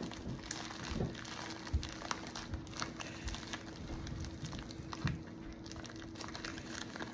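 White padded plastic mailer crinkling and rustling, with scattered small crackles, as hands pick and pull at its sealed opening.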